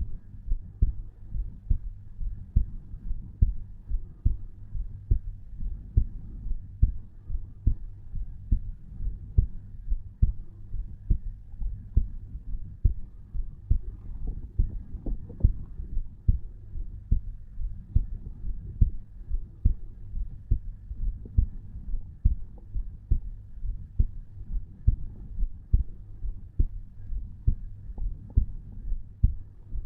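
Human heartbeat at rest, picked up at the chest over the tricuspid valve: a steady lub-dub at about 60 to 70 beats a minute, each beat a pair of low thumps over a low hum.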